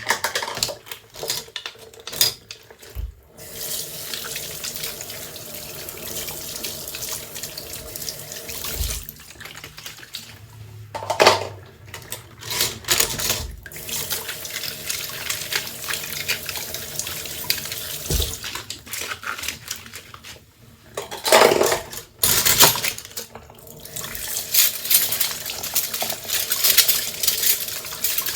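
Tap water running into a kitchen sink while dishes are washed, with scattered clinks and clatters of dishes, a few louder ones partway through.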